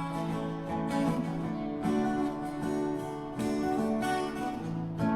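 Acoustic guitar strumming the closing chords of the song, with no singing.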